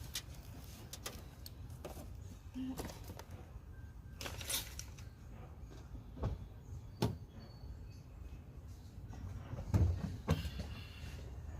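Scattered faint knocks and clicks, a few louder ones about four, seven and ten seconds in, over a low steady rumble.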